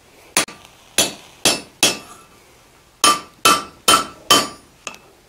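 Hand hammer striking a hot punch driven into a red-hot flat steel bar on the anvil, hot-punching a quarter-inch bolt hole. Two runs of four ringing metal-on-metal blows with a pause of about a second between, and a lighter tap near the end.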